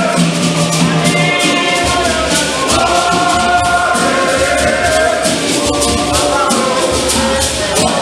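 Men's choir singing a hymn in harmony, accompanied by hosho (gourd rattles) shaken in a steady rhythm.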